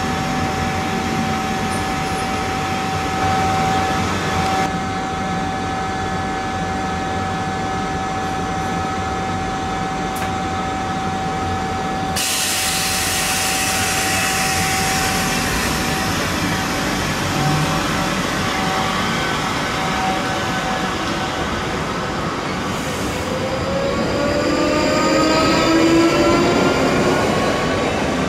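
South Western Railway electric multiple unit standing at the platform with a steady electrical hum, then pulling away: from about 22 s in, its traction motors give a rising, layered whine as the train accelerates.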